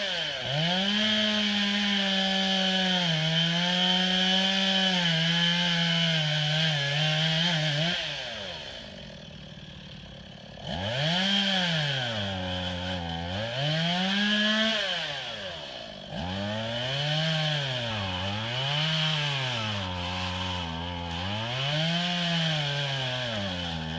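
STIHL MS 180 C two-stroke chainsaw cutting at full throttle, its pitch sagging slightly under load. About eight seconds in it drops back to idle for a couple of seconds, then revs up and down over and over, roughly every two seconds.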